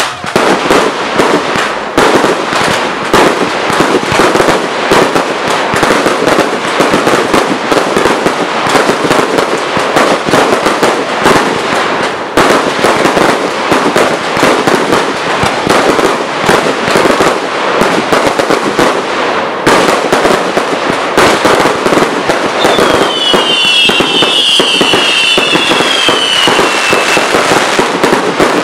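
Professional fireworks display in a loud, continuous barrage: shells bursting in quick succession over dense crackling. About three-quarters of the way through, a run of high whistles falls in pitch.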